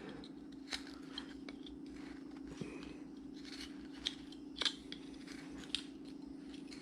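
Hand carving tool slicing into a wood carving blank: several short, crisp cuts spaced irregularly, over a steady low hum.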